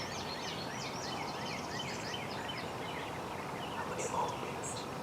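Songbirds chirping, a quick run of high chirps over the first half, over a steady outdoor hiss, with a faint lower call about four seconds in.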